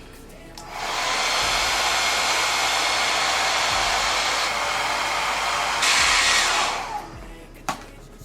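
Handheld hair dryer blowing steadily for about six seconds, turned up or brought closer near the end before it switches off, typical of drying spray glue to set a wig's lace. A single click follows.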